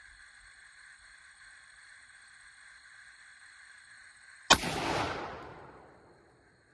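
A single 6.5 Creedmoor rifle shot about four and a half seconds in, sharp and loud, followed by a long echo that dies away over about two seconds.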